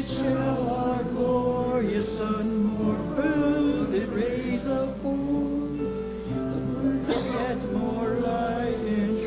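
Congregation singing a hymn together, voices holding long sustained notes of the melody.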